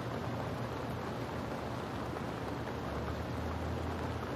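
Steady rain falling, a continuous even hiss with a low rumble underneath that swells a little about three seconds in.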